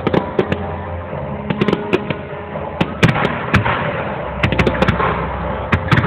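Fireworks going off: an irregular series of sharp bangs and cracks, coming in clusters, the loudest about three seconds in.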